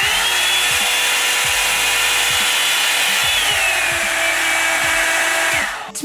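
Revlon One-Step hair dryer brush switched on for a noise test. Its fan motor spins up to a steady high whine over a rush of air, drops to a lower pitch about halfway through, and cuts off near the end.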